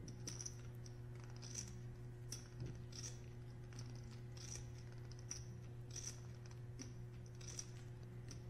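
Poker chips clicking as they are handled at the table, faint and regular at about one click every three quarters of a second, over a low steady hum.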